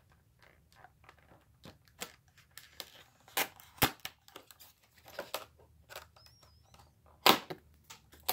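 Old plastic blister pack of a carded Hot Wheels die-cast car being cracked open and torn from its cardboard backing: crinkling and tearing with several sharp snaps, the loudest about seven seconds in.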